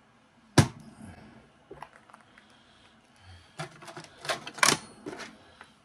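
Small metal parts being handled on a workbench and set down on a plastic digital scale: a sharp knock about half a second in, then a run of short clicks and clinks a few seconds later, one with a brief metallic ring.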